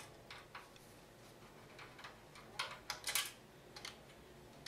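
Small metallic clicks and taps as a screwdriver works the motherboard screws out of a NAS's metal chassis: a few light ticks, then a quick cluster of sharper clicks about three seconds in.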